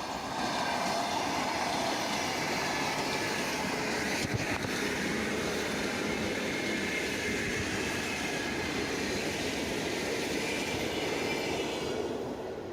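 A train running by on the rails: a steady rush of wheel and rail noise that holds level, with a couple of clanks about four seconds in, then fades away near the end.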